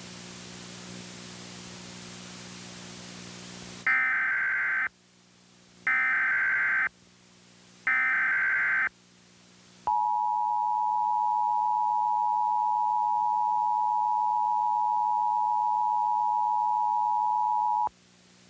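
Steady static hiss, then three one-second bursts of Emergency Alert System SAME header data about two seconds apart. Then comes the EAS two-tone attention signal (853 and 960 Hz), held steady for about eight seconds before it cuts off: the signal that a new warning is about to be read.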